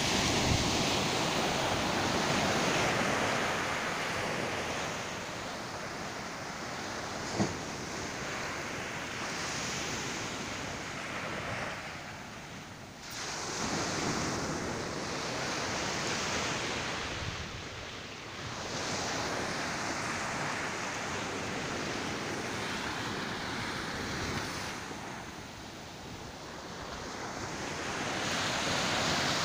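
Ocean surf breaking and washing up a sandy beach, the hiss of the water swelling and ebbing as each wave comes in and draws back. One short click about seven seconds in.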